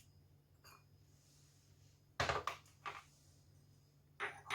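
A few short knocks and clinks of a bowl and utensils being handled on a table, the loudest about two seconds in and another pair near the end.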